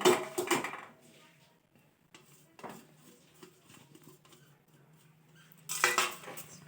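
Small kitchen handling noises while spices are added to a pot of water for a decoction: a few faint taps, then a short rustling scrape about six seconds in.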